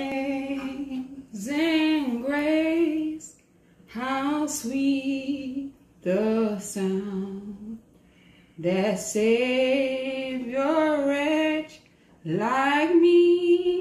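A woman singing unaccompanied, in slow phrases of held notes with short breaks between them.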